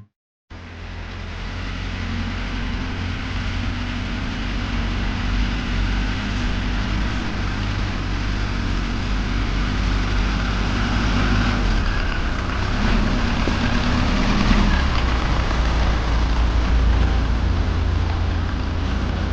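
Steady vehicle engine rumble with a broad hiss over it. It builds up over the first couple of seconds, then runs on without a break.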